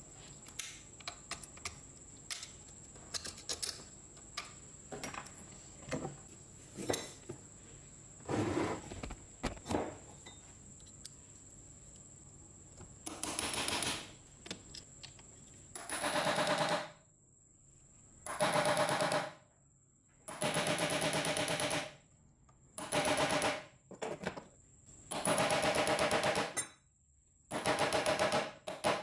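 Scattered light metallic clicks of a thin tool picking inside an angle grinder's motor housing around its field coils, then about seven bursts of rapid metal-on-metal tapping, each a second or so long, on a punch held against the housing.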